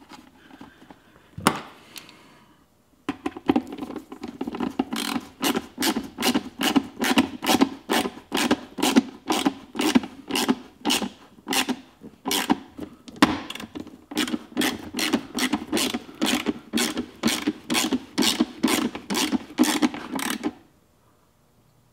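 Hand screwdriver driving screws into a plastic snowmobile glovebox extension: an even clicking, about two clicks a second, as the handle is worked round. One sharp click about a second and a half in, before the clicking starts.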